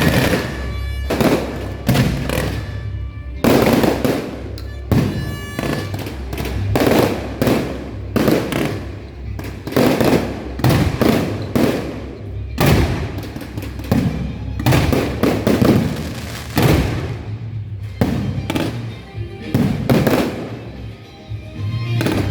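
Fireworks going off in quick succession at a temple festival: sharp bangs about one or two a second, each followed by a rolling, echoing tail.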